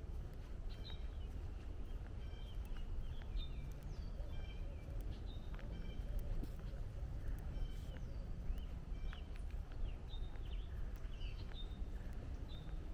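Several songbirds chirping, many short repeated calls overlapping, over a steady low rumble.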